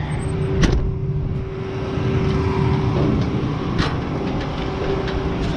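Combine harvester running with a steady engine drone and a constant hum, with a couple of sharp knocks, one near the start and one about four seconds in.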